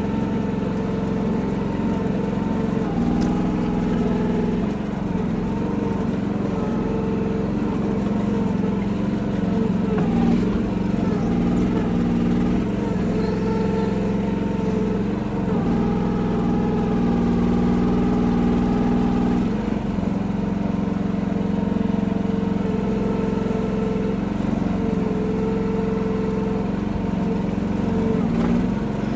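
The 14 hp Briggs & Stratton engine of a Chinese micro mini excavator running steadily, its note shifting and dipping now and then as the machine works.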